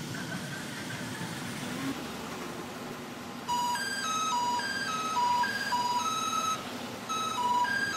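A train rumbles past at first. About halfway through, a repeating three-note electronic melody starts and runs on: the musical horn of a red-and-white Meitetsu Panorama Super train sounding as it approaches the level crossing.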